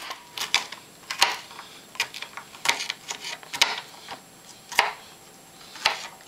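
Kitchen knife chopping garlic cloves on a plastic cutting board: a series of sharp knocks of the blade on the board at an uneven pace, with short pauses between.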